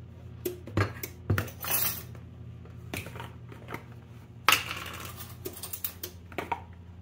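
Light clicks, clinks and knocks of spice containers, lids and measuring spoons being handled on a kitchen counter, with two short rustling scrapes, over a steady low hum.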